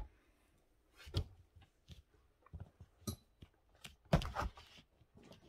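Scattered light clicks and knocks of drawing materials being handled, such as markers being picked up, capped and set down, with the loudest cluster about four seconds in.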